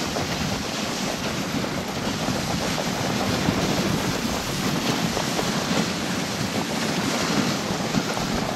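Steady rushing wind noise on the microphone, even and unbroken.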